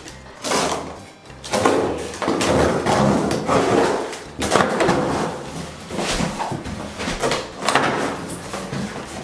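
Utility knife slicing through the tape and cardboard of a large appliance box, a run of rasping cuts, then the cardboard flaps being pulled open with scraping and knocks.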